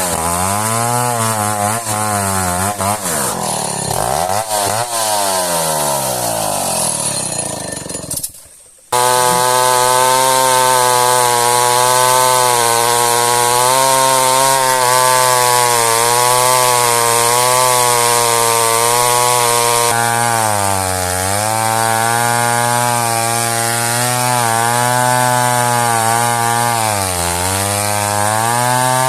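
Petrol chainsaw running at high revs while cutting through a hard old merbau log, its engine note sagging under load and picking up again several times. About eight seconds in it dies away, then cuts back in abruptly at full speed.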